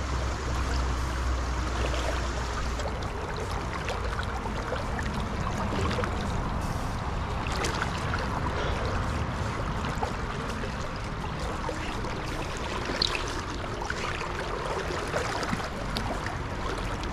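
Tailwater river current flowing steadily, a continuous rush of moving water, with a few faint clicks.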